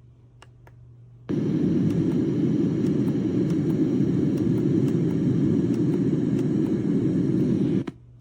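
Loftie alarm clock's sound machine playing a steady low rumbling noise, which starts abruptly about a second in and cuts off suddenly near the end. A few faint clicks come just before it.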